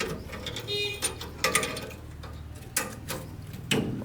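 A few sharp, irregular knocks and clicks over a low steady hum, with a brief squeak under a second in.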